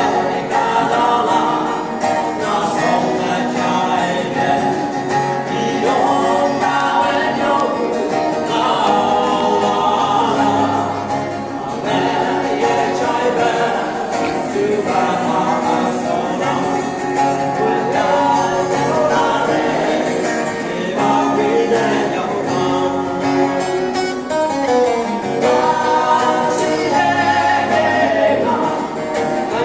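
Three men's voices singing a gospel song in Konyak together in harmony, accompanied by an acoustic guitar.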